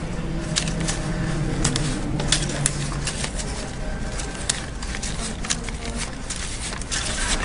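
A stack of $100 banknotes being counted through by hand: irregular crisp flicks and rustles of paper bills.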